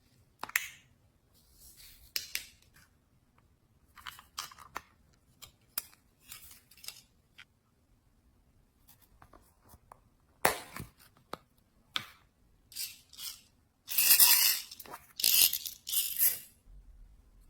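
Slime being worked by hand, heard as short, irregular bursts of sticky, crunchy noise with gaps between them; the loudest run comes near the end.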